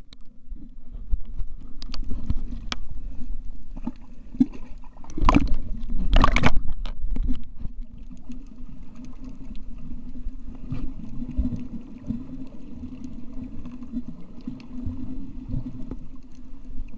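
Underwater sound picked up by a camera below the surface: muffled water noise over a steady low hum, with two loud rushes of water noise about five and six seconds in.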